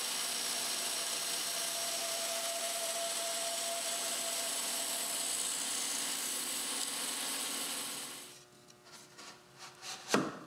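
Woodworking power tool running steadily, cutting a tenon in wood, and stopping about eight seconds in. Then come a few light taps and one sharp knock near the end as the wooden tenon is fitted into its mortise.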